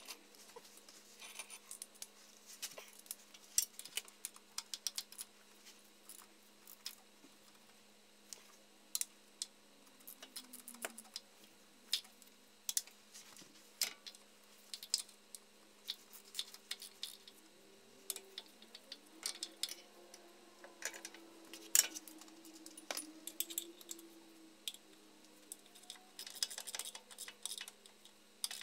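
Ratchet and socket on a long extension clicking and clinking against metal while the oil pan bolts are run in and fastened: irregular sharp clicks, with a denser run of quick clicks near the end.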